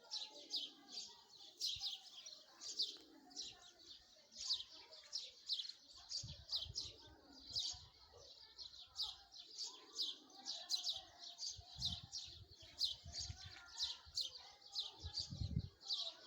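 Small songbirds chirping: a steady run of short, high chirps, about two to three a second, with a few low muffled bumps partway through and near the end.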